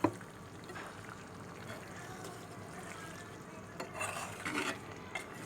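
A spoon stirring a pot of simmering ginger-tamarind broth, with steady low bubbling throughout and a few scrapes of the spoon against the pot about four seconds in.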